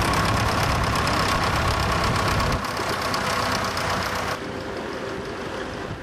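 Vintage tractor engine running steadily as it pulls a trailed plough. About two and a half seconds in, the low engine sound cuts off, leaving quieter engine noise in the background.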